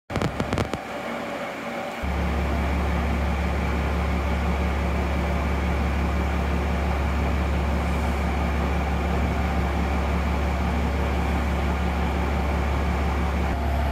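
Diesel railcar (Hitachinaka Seaside Railway MiKi 300) idling at a standstill: a steady low engine hum that comes in strongly about two seconds in, after a few clicks in the first second.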